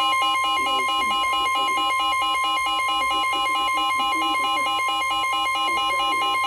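NOAA Weather Radio's steady 1050 Hz warning alarm tone, which announces that a new alert is about to be read. A second electronic alarm beeps quickly over it in a rapid, evenly repeating alternating pattern.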